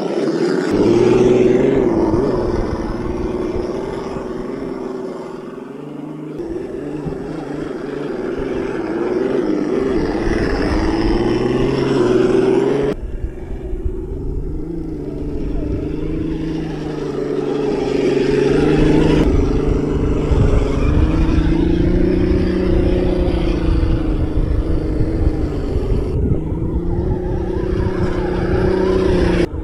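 Electric motor and gearbox of an RC crawler truck whining as it climbs and drives over dirt. The pitch rises and falls with the throttle, over a low rumble.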